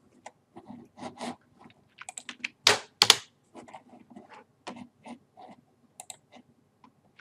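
Computer keyboard keystrokes: an irregular run of short clicks, with two louder strikes about three seconds in.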